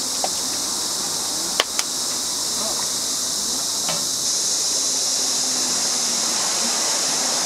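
A steady high hiss with a few sharp knocks, two of them close together about a second and a half in.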